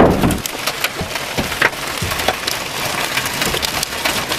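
Softball-size hailstones pounding a vehicle's body and glass, heard from inside the car. There is a loud crash right at the start, then dense, irregular sharp hits.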